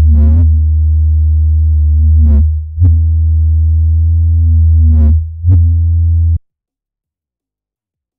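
Helm software synthesizer holding a low, buzzy sustained note driven from an XY pad. Its filter cutoff briefly sweeps open several times, brightening the tone. The note restarts twice and then cuts off abruptly a little over six seconds in.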